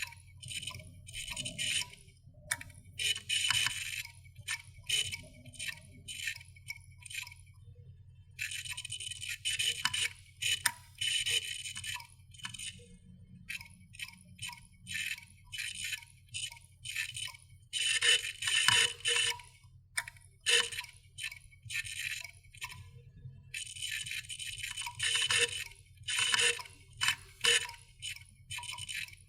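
Failing computer hard drive clicking in irregular quick clusters of sharp ticks, over a steady low hum. The repeated clicking is the sign of a dying drive at the end of its life.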